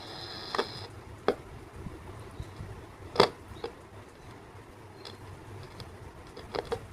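A few sharp clicks and knocks of hands handling a spare loudspeaker and its wires while connecting it to the home theater amplifier's speaker output, the loudest about three seconds in and a quick pair near the end. A faint high steady tone stops within the first second.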